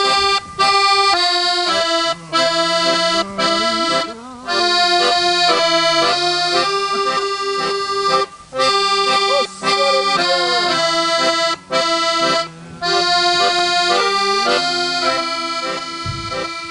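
Button accordion playing a tune in held chords, with short breaks between phrases. It fades out near the end.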